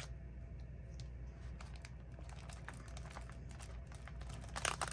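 Quiet desk handling of paper journaling materials: scattered small taps and light paper rustles as a piece is glued down onto a journal page, with a louder, brief paper rustle just before the end.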